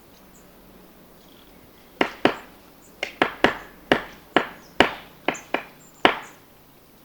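Great spotted woodpecker hammering at a cone with its bill to get at the seeds. About a dozen sharp, irregular knocks, two or three a second, start about two seconds in and stop near the end.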